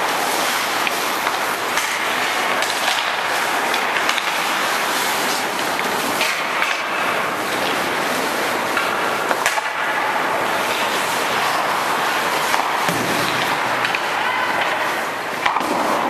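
Many hockey skate blades scraping and carving on rink ice as a group of players skates, with sharp clacks of sticks and puck scattered through it.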